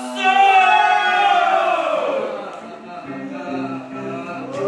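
Singing voices with music: a loud, wavering held note that falls away about two seconds in, followed by quieter, steadier lower notes.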